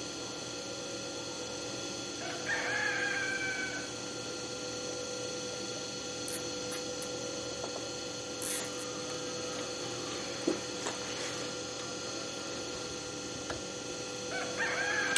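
Rooster crowing twice, about two seconds in and again near the end, over a steady hum.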